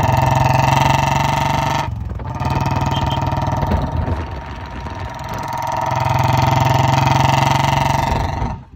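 Royal Enfield Bullet's single-cylinder engine and exhaust running at a steady speed under way, with a brief break about two seconds in.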